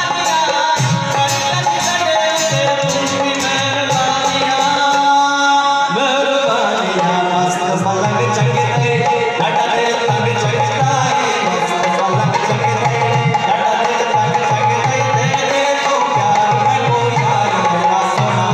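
Music with a steady hand-drum beat under a melody; the music changes about six seconds in.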